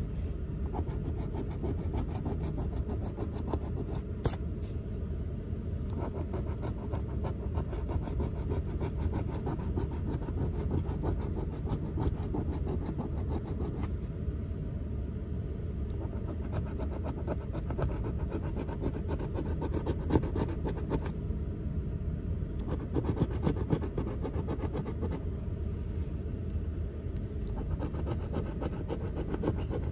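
A coin scraping the scratch-off coating from a lottery ticket: rapid, continuous rubbing strokes, over a steady low rumble.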